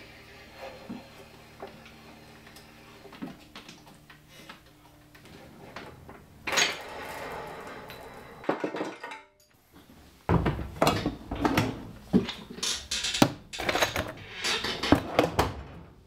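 A headset press being wound down on a bicycle head tube to press in headset cups, with faint metal clicks and a louder scrape about six and a half seconds in. From about ten seconds in, a run of loud metallic clattering and rattling.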